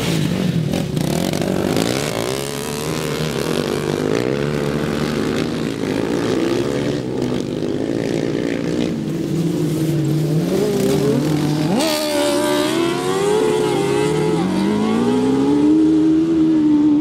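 Several racing lawn mower engines revving at full throttle and easing off, their pitches overlapping and rising and falling as the mowers race past. About twelve seconds in, one revs up sharply.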